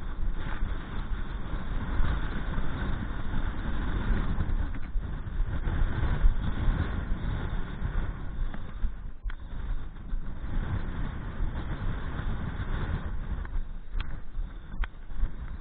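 Strong gusting wind buffeting the microphone: a dense low rumble that swells and eases, with a few short clicks in the last few seconds.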